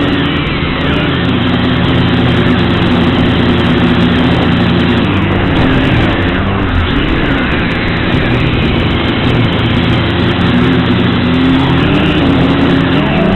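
XK X250 quadcopter's motors and propellers running steadily, their whine wavering up and down in pitch.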